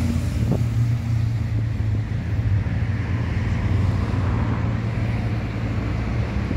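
Road traffic noise with a steady low engine hum from a vehicle running nearby.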